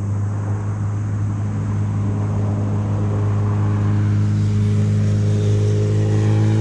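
Motorcycle engine running at a steady idle, growing gradually louder, with its pitch rising slightly near the end.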